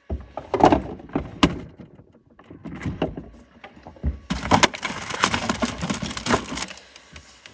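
Crunching and crackling of cold grapes being bitten and chewed, in irregular sharp strokes, thickest in the second half.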